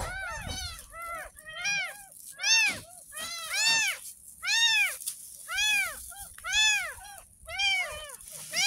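Ten-day-old kittens mewing over and over, high cries about one a second, each rising then falling in pitch, with two kittens sometimes calling at once.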